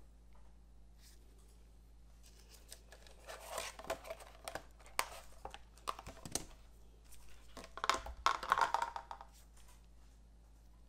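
Thin clear plastic soap mold crinkling and crackling with sharp clicks as it is flexed and pressed to pop a round melt-and-pour soap bar out, in two stretches of handling about a second apart.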